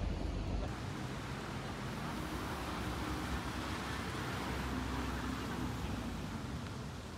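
Street traffic: a car driving slowly by, its low engine hum over a steady outdoor hiss.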